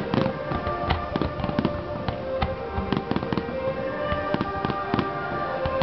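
Aerial firework shells bursting in a rapid, irregular barrage of bangs, a few each second, with music playing underneath.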